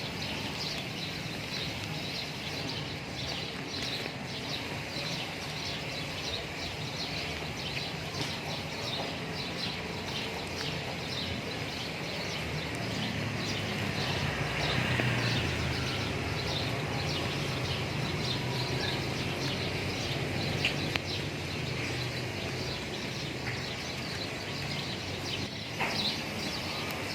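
Birds chirping, many short repeated calls, over a steady low rumble that swells for a few seconds around the middle.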